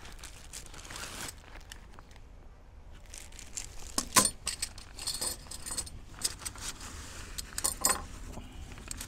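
Metal tent pegs clinking and jangling together as they are handled, in a run of sharp clicks with the loudest clink about four seconds in.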